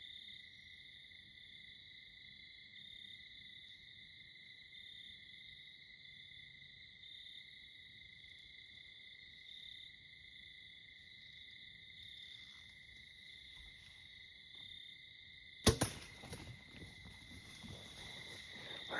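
Steady chorus of crickets and other insects, then near the end a single sharp thwack of a bow shot at a doe, which the hunter thinks hit her. It is followed by a few seconds of irregular rustling.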